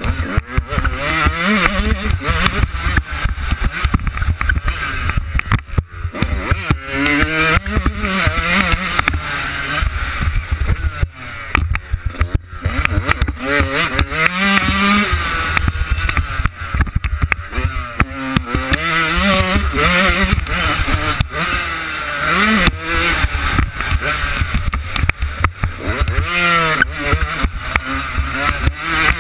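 Yamaha YZ125's two-stroke single-cylinder engine revving up and dropping back again and again as the motocross bike is ridden hard around the track, heard from a helmet camera with wind buffeting the microphone.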